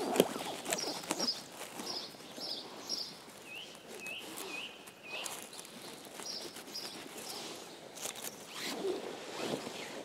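Rustling and snapping of dry pine needles and lichen as mushroom stems are cut at the base with a small knife, with a few sharp clicks, the loudest about a quarter-second in. A small bird calls with short high chirps, repeated many times.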